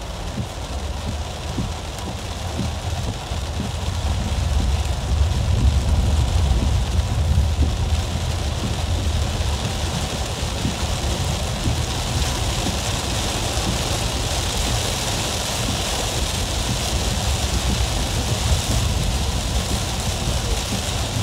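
Car interior while driving in heavy rain: a steady hiss of rain on the car and tyres on the wet road, over a low engine and road rumble that grows louder over the first four seconds and then holds.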